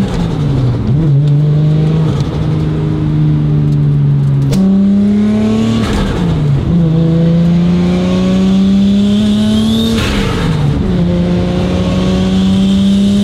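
Toyota Supra MK4's turbocharged 2JZ straight-six pulling hard through the gears: the engine note climbs steadily in each gear and drops at the upshifts about six and ten seconds in, with a faint high turbo whistle rising over each pull.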